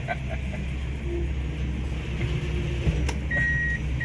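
Steady low rumble of a car's engine and road noise. A little after three seconds a sharp click is followed by a high electronic beep that repeats in short pulses.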